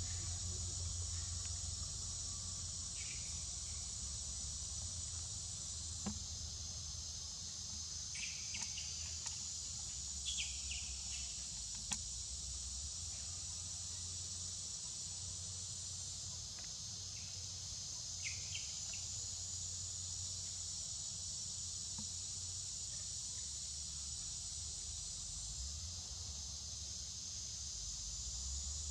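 A steady, high-pitched chorus of insects shrilling without a break, over a low rumble. A few short high chirps come through about a third of the way in and again past the middle, and there is one sharp click.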